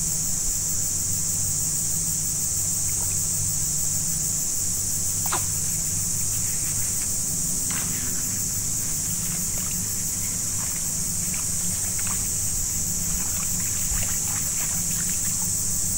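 Forest swamp insects, cicadas or crickets, keeping up a steady high-pitched chorus, over a low steady hum, with a few short ticks and splashes scattered through the second half.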